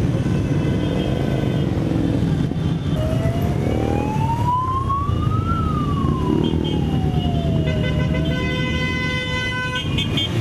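Many motorcycle engines running together as a column of bikes rides past. A siren wails once over them about three seconds in, rising for a couple of seconds and falling again, and a steady high tone sounds near the end.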